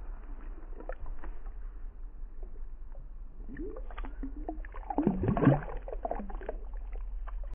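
Water sloshing and gurgling at the side of a kayak as a released largemouth bass swims off through lily pads, loudest about five seconds in, over a steady low rumble.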